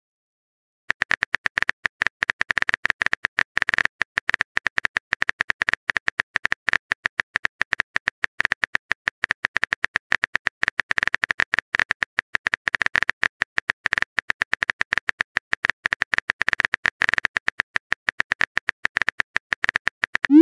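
Rapid, uneven stream of phone-keyboard typing clicks, the sound effect of a chat message being typed out. It starts about a second in.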